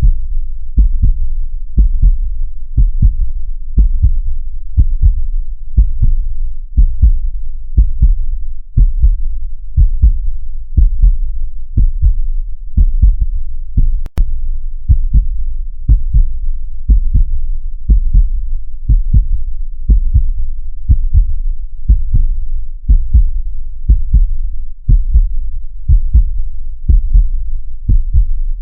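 Heartbeat: steady low beats at about one a second, with a single brief click about halfway through.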